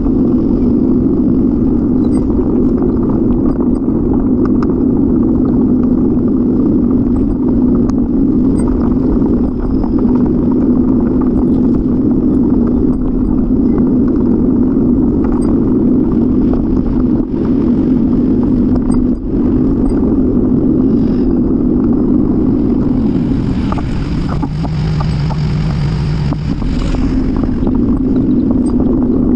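Steady rumbling noise from a bicycle-mounted camera riding along a city street: wind, road and traffic noise. For about three seconds near the end the sound changes, with a lower hum and a hiss over it.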